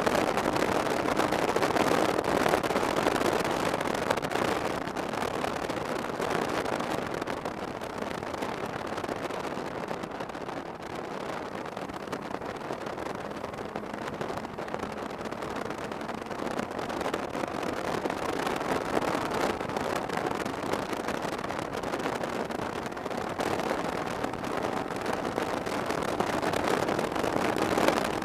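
Snowmobile running along a packed snow trail, engine and track noise mixed with wind on the microphone. It eases off somewhat in the middle and picks up again toward the end.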